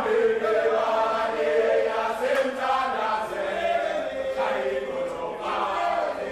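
A football team's players singing together as one group of men's voices, a chant-like song of held notes that carries on without a break.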